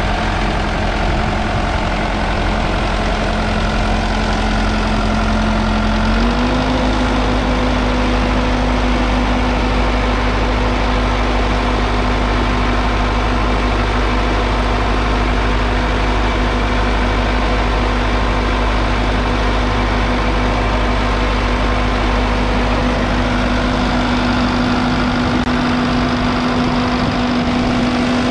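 1959 Massey Ferguson 65's 3.3-litre four-cylinder diesel engine running steadily. Its revs rise slightly about six seconds in, then hold at the new speed.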